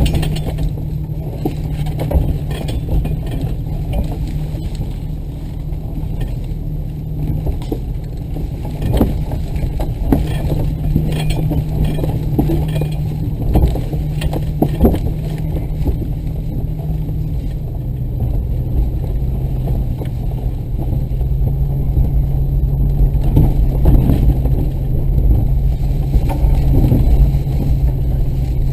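Off-road vehicle's engine running steadily as it crawls over rough ground, with frequent knocks and rattles from the body and suspension. The engine note drops a little a bit past the halfway point.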